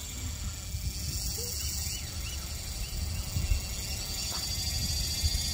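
Quadcopter drone buzzing steadily as it hovers over the sea with a fishing line slung beneath it, the whine growing stronger about four seconds in, over the rumble of wind on the microphone.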